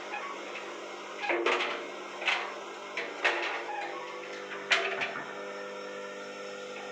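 A handful of sharp clicks and knocks over a steady low hum: hands working at a front-load washing machine's door and its faulty door lock switch.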